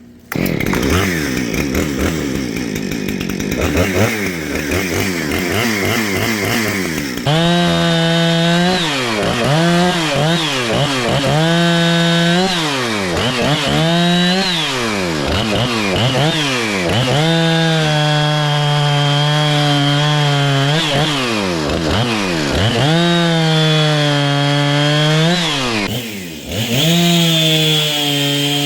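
Two-stroke chainsaw catching just after a pull-start and running, then cutting wood: the engine pitch sags and climbs back again and again as the bar loads and frees, with a few longer held stretches at full throttle and a brief drop near the end.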